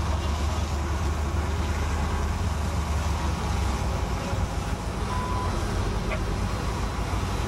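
Steady low rumble of a fire-department engine running, under a broad hiss of water spraying from a fire hose onto a burning boat. The rumble eases slightly about halfway through.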